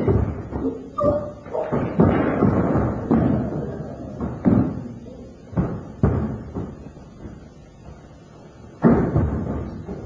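Kalaripayattu fighters' bare feet stamping and landing on a stage floor: irregular heavy thuds with a short echo, sometimes several in quick succession, the strongest near the start, about two seconds in and near the end.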